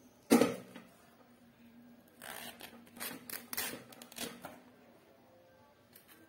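A sudden loud knock, then a run of crisp knife strokes slicing through a fresh taro stalk, cutting the soil-caked root end away.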